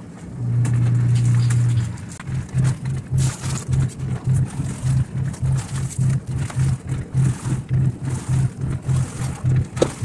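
Electric motor of a semi-automatic washing machine humming: steady for about a second and a half, then cutting in and out in quick pulses, about three a second.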